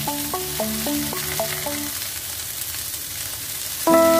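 Sliced okra sizzling as it fries in a pan, stirred with a wooden spatula: a steady frying hiss. A short repeating melody plays over it for the first half, and louder music with ringing, sustained notes comes in near the end.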